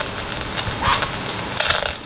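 A dog barking twice, one short falling bark about a second in and another near the end, over a steady background hiss.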